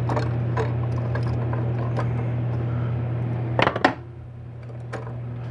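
Light metallic clicks and taps of a steel snap ring and clutch parts being worked into a 4L80E automatic transmission's direct clutch drum, with a short sharp clatter of metal on metal, snap-ring pliers set down on the metal bench, about three and a half seconds in, over a steady low hum.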